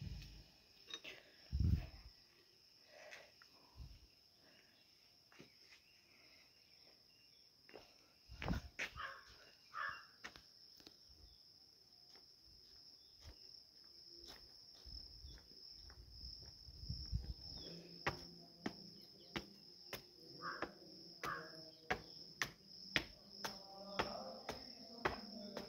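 Steady high-pitched chirring of insects such as crickets, with low rumbles of wind or handling on the phone's microphone. In the second half a run of sharp clicks comes about twice a second.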